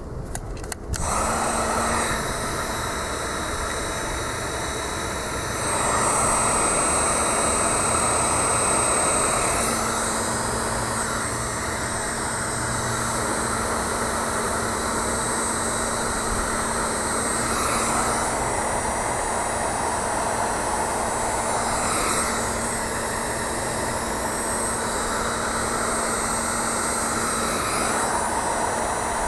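Electric heat gun switched on about a second in and blowing steadily, with a constant low hum and a high whine over the rush of air, a little louder from about six seconds. It is shrinking glue-lined heat shrink tubing over crimped wire splices.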